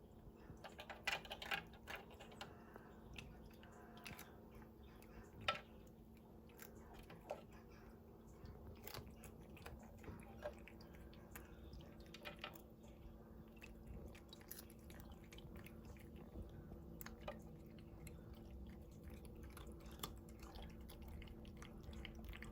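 Faint crunching and chewing of dried anchovies, a series of small irregular crisp crunches with pauses between bites, heavier in the first couple of seconds and once more around five seconds in.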